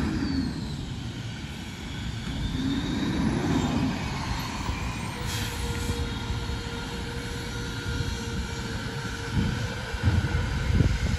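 A Peterbilt garbage truck with a New Way King Cobra rear loader, heard from down the street. Its diesel engine runs with a steady low rumble and rises briefly about three seconds in. A steady whine is heard through the middle, and there are a few low knocks near the end.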